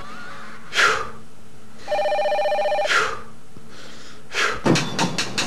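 A telephone ringing once with a rapid trilling ring, about a second long, about two seconds in. Short falling swishes come just before and after it, and a quick clatter of knocks near the end.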